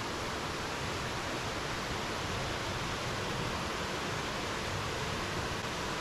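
Steady rush of flowing water, an even hiss with no break or change.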